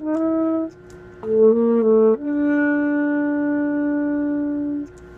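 Saxophone playing a slow lyrical melody: a short note, a brief pause, a quick run of a few notes, then a long held closing note that stops near the end.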